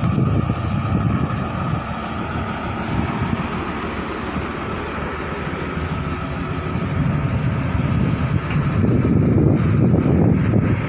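Sumitomo 280FJ1 hydraulic excavator's diesel engine running steadily, growing louder about two-thirds of the way through.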